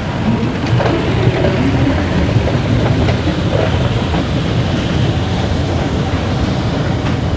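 Steady low rumble and hiss of an underground MRT station interior with a moving escalator, with faint voices in the background.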